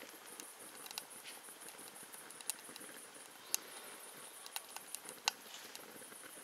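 Wood burning in a small woodgas camp stove, crackling with sharp, irregular pops and snaps over a faint hiss; the two loudest snaps come about three and a half and five seconds in.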